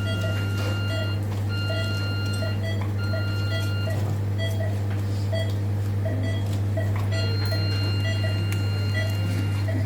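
Operating-theatre patient monitor beeping: a steady train of short pulse beeps, a little under twice a second, with a longer alarm tone repeating about every one and a half seconds, over a steady low hum.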